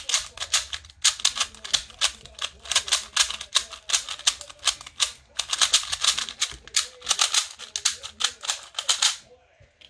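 MoFang JiaoShi MF2S stickerless 2x2 speed cube being turned fast during a solve: a rapid, continuous clatter of plastic layers clicking, stopping about nine seconds in.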